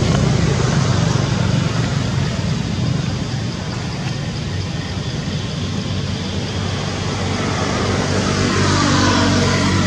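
Steady motor-vehicle engine and traffic noise, a continuous low hum, with an engine note that shifts in pitch near the end.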